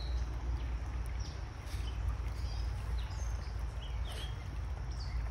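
Shallow rocky creek running steadily, over a constant low rumble on the microphone.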